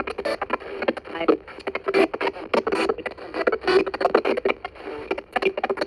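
Home-made ghost box (spirit box) sweeping linearly through FM radio stations: rapid, choppy snatches of broadcast sound, several a second, chopped up by the sweep with faint noise between.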